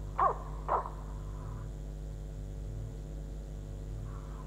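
Steady low hum, broken by two short, loud chirps that fall in pitch, about a quarter and three-quarters of a second in. Near the end a rushing jet noise begins to build as a BAE Hawk T1 of the Red Arrows closes in.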